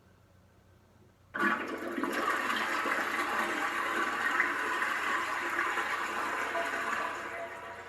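A toilet flushing: a sudden rush of water starts about a second in, runs steadily for about six seconds, and begins to die away near the end.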